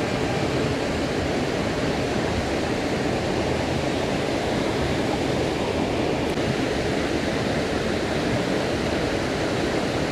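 Steady rush of a mountain stream's flowing water, unchanging throughout.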